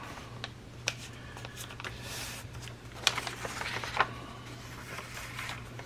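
Paper being handled and pressed onto a journal page: faint rustling with a few light taps, over a steady low hum.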